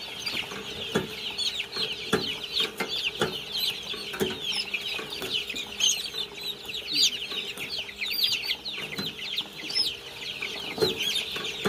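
Many young chicks peeping continuously in a dense chorus of high chirps, with sharp clicks about once a second and a faint steady hum beneath, while their beaks are being trimmed on an electric debeaking machine.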